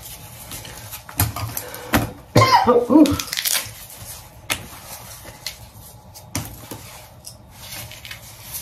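Scattered clicks and knocks of small objects being handled, with a short pitched sound whose pitch wavers and falls about two and a half seconds in.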